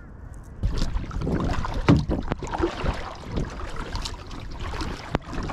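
Water splashing and sloshing around a kayak, with a few sharp knocks.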